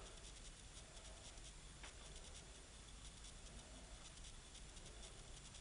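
Near silence: steady low hiss of room tone, with one faint click about two seconds in.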